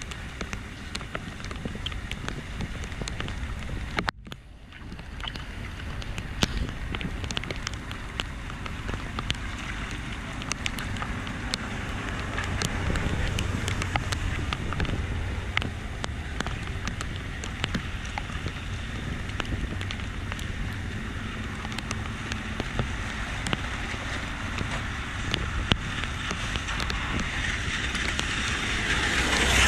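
A steady rush of flood water draining into a cleared curb-side storm drain inlet, with small splashes and wind buffeting the microphone. The sound drops out briefly about four seconds in and grows louder near the end.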